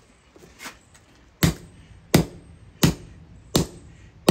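Steady hammer blows on an object on the ground: a couple of light knocks, then from about a second and a half in, sharp strikes about one every 0.7 seconds.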